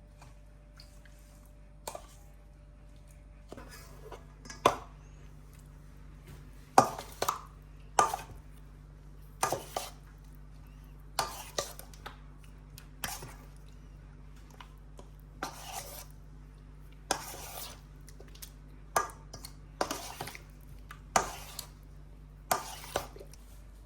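Kitchen utensils clinking and scraping against cookware, about one sharp stroke every second, over a steady low hum.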